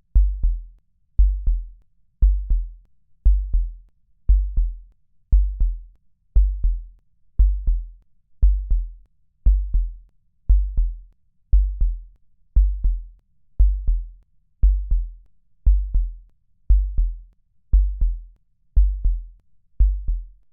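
Heartbeat-style sound effect: a deep double thump, lub-dub, repeating steadily about once a second.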